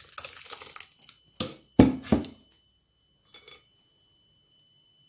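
Wet blended pulp scraped in a stainless-steel mesh sieve over a glass bowl, then three sharp clanks of metal against the sieve and bowl, with a faint clink a little later.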